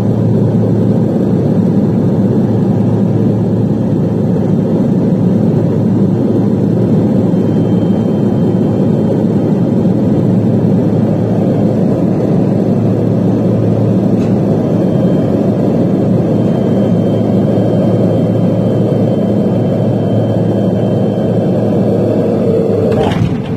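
Steady engine and airflow noise inside the cabin of a small airliner on final approach. Near the end a brief sharp noise comes as the wheels reach the runway, and the engine noise drops.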